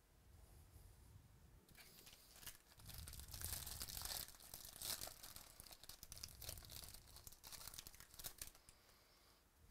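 A foil trading-card pack wrapper being torn open and peeled off by hand. It crinkles and crackles from about two seconds in, loudest around the middle, then dies down near the end.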